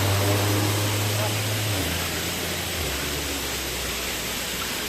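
A vehicle engine running under steady road and wind noise, its low hum dropping in pitch in two steps, about two and three seconds in, as it slows down.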